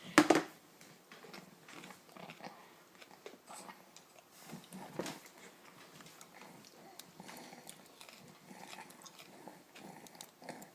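Baby eating puréed carrots from a spoon: small mouth sounds, smacks and soft grunts, with one short loud burst just after the start.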